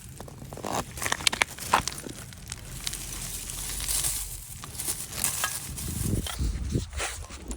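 Grass and plant stems rustling and crackling, with many irregular short snaps, as wild onions (nobiru) are pulled from the ground.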